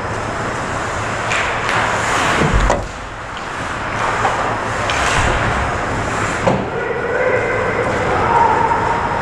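Ice hockey play right at the net: skates scraping and carving the ice, with sticks and puck clacking in several sharp knocks during the scramble in front of the goal.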